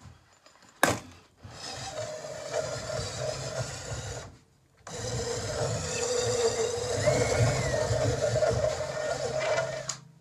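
Cordless drill running in reverse, spinning a wooden dowel back out through a 3/8-inch dowel-cutting die, the wood rubbing in the die. It runs in two stretches with a brief stop about four seconds in, after a sharp click about a second in.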